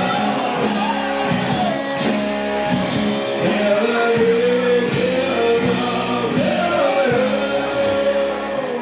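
Rock song with a singer holding long, drawn-out notes over a steady bass line.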